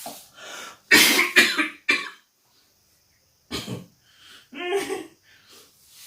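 A person coughing: three harsh coughs in quick succession about a second in, then another cough and a short voiced sound midway.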